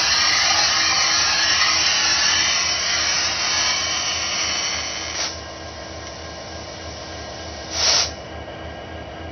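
Union Pacific diesel locomotive moving slowly through a rail yard. A loud steady hiss of air cuts off suddenly about five seconds in, then a short sharp blast of air comes near the end, over a low steady hum.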